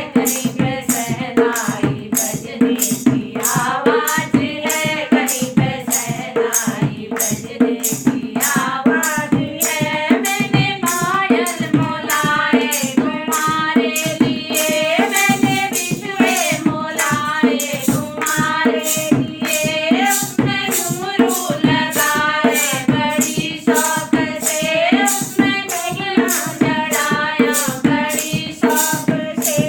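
A Hindi banna-banni wedding folk song being sung, with a melodic vocal line over percussion keeping a steady beat.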